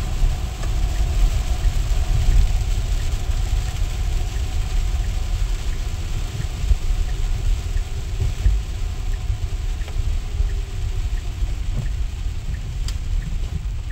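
Tesla Model X cabin noise while driving on a wet road in rain: a low road rumble under a steady hiss of tyres and spray, with a faint electric-motor whine that falls in pitch as the car slows. A light, even ticking about twice a second comes in about two-thirds of the way through.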